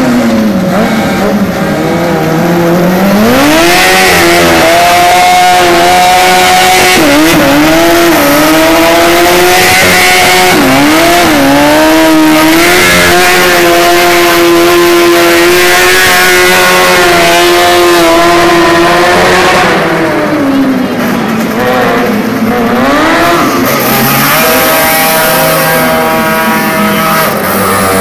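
A modified Piaggio Ape three-wheeler's small engine revving hard while drifting: its pitch climbs and dips again and again and is held high for long spells. It eases off for a few seconds about two-thirds of the way through, then revs up again.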